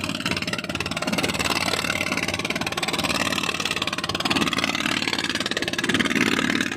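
Small boat's engine running steadily under way.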